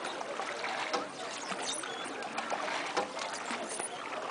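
River water washing and splashing against the side of a small boat under way, an even rushing sound with small irregular splashes through it.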